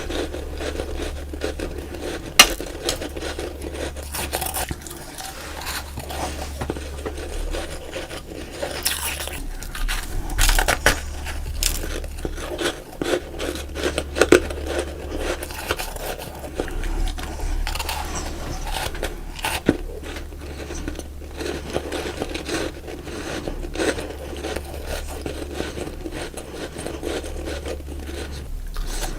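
Crunching and chewing of packed freezer-frost ice snowballs close to the microphone: irregular crackles and scraping crunches, over a steady low hum.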